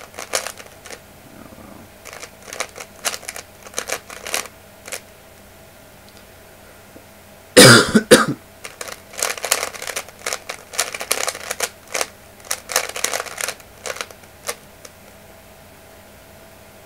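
A 3x3 Rubik's cube being turned quickly by hand, in rapid runs of plastic clicking and clacking as the layers snap round, finishing the last layer of a solve. About seven and a half seconds in there is one loud, sudden noise lasting under a second.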